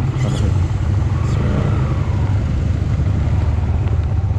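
Motorcycle engine running as the bike pulls away, with a faint rising tone about a second in as it picks up speed.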